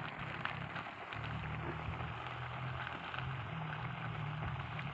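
Mushrooms cooking in a wok over a wood fire: a steady sizzle with small crackles. A low steady hum sits underneath from about a second in.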